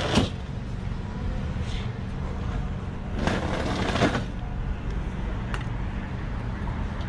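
Steady low rumble of road traffic and engines at a roadside checkpoint. About three seconds in there is a brief louder rush lasting about a second, and a couple of faint clicks.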